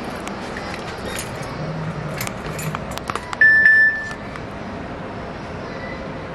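Keys jangling with small scattered clicks over a steady hiss. One short electronic beep about three and a half seconds in is the loudest sound.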